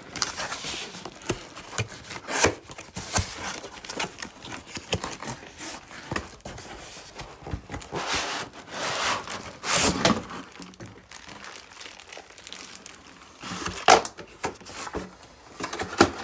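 Cardboard shipping box being opened by hand, with irregular scraping, rustling and crinkling of the cardboard and packing material.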